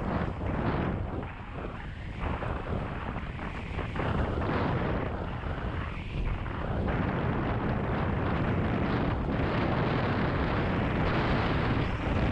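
Wind buffeting the microphone of a GoPro on a hardtail mountain bike being ridden, mixed with tyre noise and frame rattle over rough, muddy ground. It is steady and loud, with a brief dip about a second and a half in.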